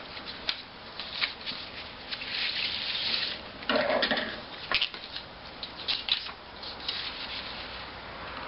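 Paper rustling and crinkling as folded strips and a paper airplane are handled and pressed flat on a wooden tabletop, with small scattered taps and clicks. A louder rustle of paper being moved on the table comes a little under four seconds in.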